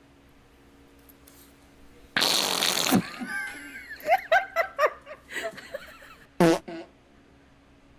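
A loud, airy fart lasting under a second, followed by a few seconds of a person laughing, with one short loud voiced outburst near the end.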